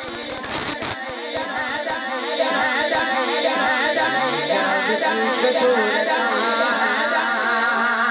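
A boy's solo voice singing a naat unaccompanied through a microphone and loudspeakers, in long held lines with a wavering, ornamented pitch. A flurry of sharp clicks comes in the first second.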